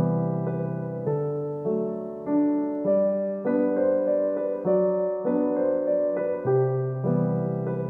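Background piano music: soft chords struck at an even, unhurried pace, each ringing and fading before the next.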